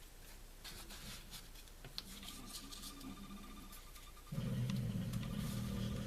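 Paper pages and cardstock of a handmade scrapbook album being handled and turned, with light rustles and a click. For the last couple of seconds a low steady drone sounds over the handling.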